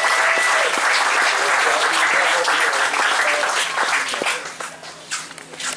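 Audience applauding, dense at first, then dying away about four seconds in to a few last scattered claps.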